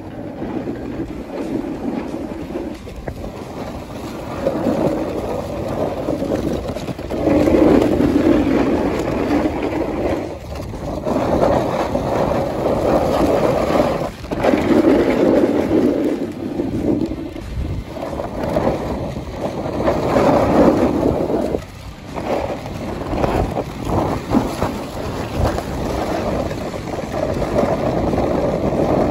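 Snowboard sliding over packed snow, the board scraping in surges every few seconds as it turns, mixed with wind rushing over a phone's microphone.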